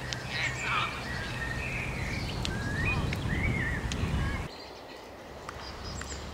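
Outdoor ambience with chirping, gliding bird calls and faint voices, a few short sharp clicks, and a steady low rumble that cuts out about four and a half seconds in, leaving it quieter.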